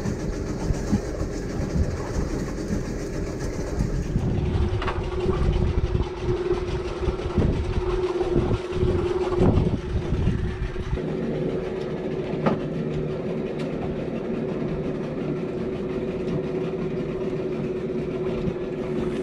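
Small fishing boat's engine running at idle with a steady hum over a low rumble of wind and water, with a few scattered knocks.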